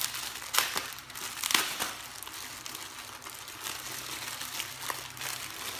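Plastic packaging crinkling and rustling as it is handled, with several sharp clicks and taps mixed in, the loudest in the first two seconds.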